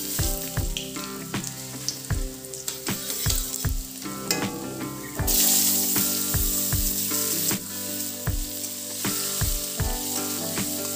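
Chopped garlic and cumin seeds sizzling in hot oil in a wide kadai. About five seconds in, chopped potatoes, wet from soaking in water, are tipped in and the sizzle gets louder. The potatoes are then stirred and scraped with a spatula.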